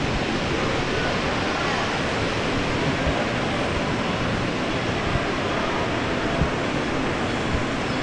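Steady hubbub of a large indoor museum hall: distant crowd voices blended into an even wash of noise, with a few soft knocks.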